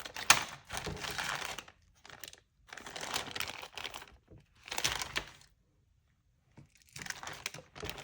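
Jewelry bag crinkling as it is handled and rummaged through, in four bursts with a sharp snap shortly after the start and a pause of about a second near the end.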